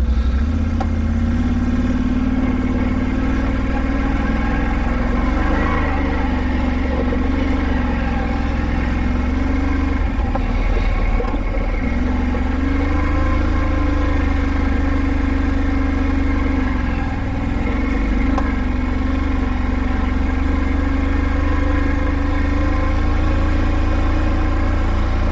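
Can-Am Outlander 570 ATV's V-twin engine running as the quad is ridden along a trail. Its pitch rises and falls gently with the throttle, easing off briefly about ten seconds in and again around seventeen seconds.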